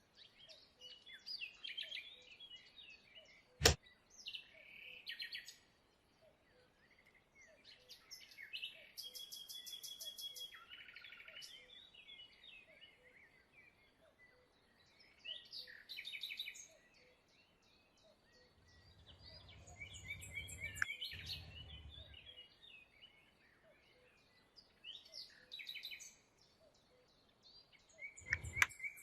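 Small birds chirping and calling in repeated short phrases, with a sharp click a few seconds in and another near the end, and a low rumbling noise for a few seconds about two-thirds of the way through.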